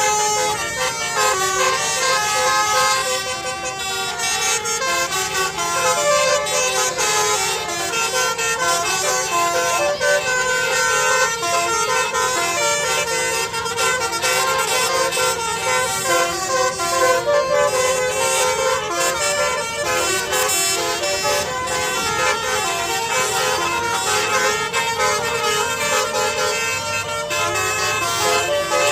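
Basuri bus air horn, a set of tuned horn trumpets, playing a melody without a break, its notes stepping up and down.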